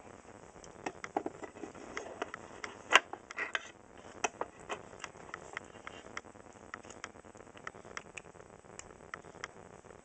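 Small metal parts clicking and tapping as a lamp-socket bracket and screw are fitted by hand onto a clock's metal motor plate, with one sharper click about three seconds in.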